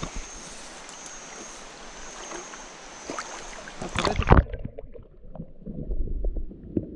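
River water rushing steadily, with a thin high whine above it. About four seconds in there is loud splashing as the camera dips into the water beside a hooked mojarra being landed. After that the sound turns muffled and low, with irregular sloshing as the fish thrashes in the shallows.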